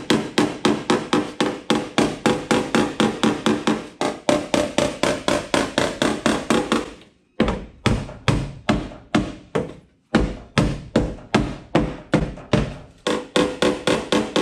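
Hammer tapping lightly and rapidly on the dented steel body panel of a Toyota Land Cruiser, backed by a panel-beating dolly, about four to five ringing metallic taps a second. There are two short breaks, about seven and ten seconds in. The tapping flattens a raised section of the crushed panel.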